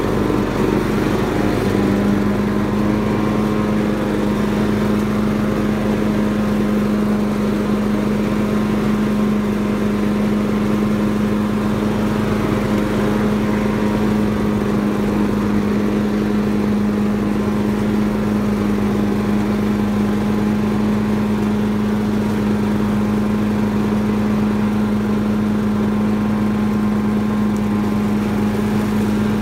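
Ride-on tractor lawnmower engine running at a steady speed, a constant hum that steps up slightly in pitch about two seconds in.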